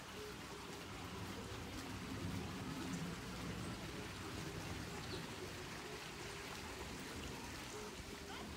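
Steady outdoor hiss of water, from the open river channel or light rain.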